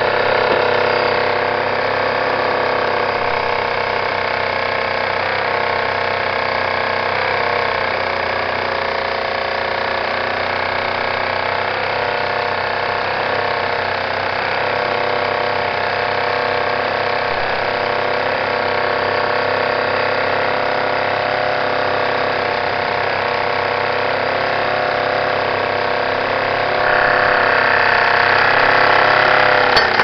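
Jensen toy steam engine driving a Kotula's coffee grinder as it grinds beans: a steady mechanical whirring whine of the engine and the grinder's gearing. It grows louder and higher for the last few seconds.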